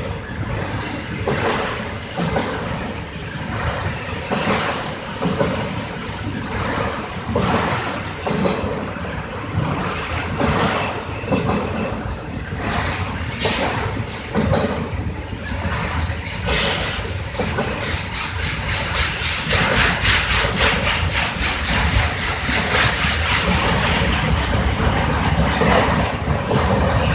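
Freight train of autorack cars rolling slowly past, with steel wheels rumbling on the rails and irregular clanks and rattles from the cars. It grows louder and more rattly from about two-thirds of the way through.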